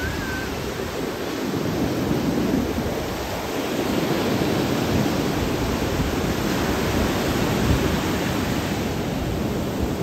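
Ocean surf: waves breaking and washing through the shallows in a steady rush that swells a little a couple of seconds in and again about four seconds in.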